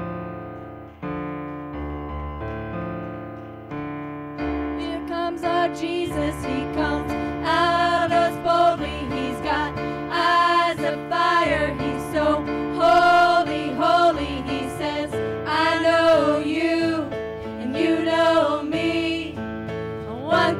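Live worship music: electric keyboard chords, then from about four seconds in a woman's voice sings over them through the microphone, with wavering held notes.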